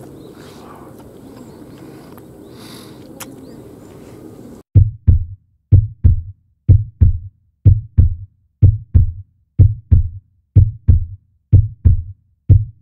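Low outdoor background noise for the first few seconds. Then the background cuts out and a heartbeat sound effect plays: loud paired lub-dub thumps, about one pair a second, nine times.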